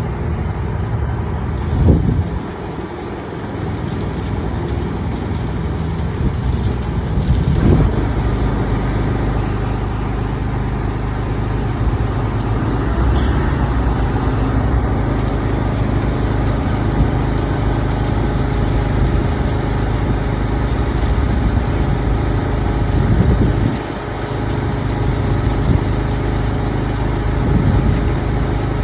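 A motor running steadily, with a brief swell around two seconds in and again near the end.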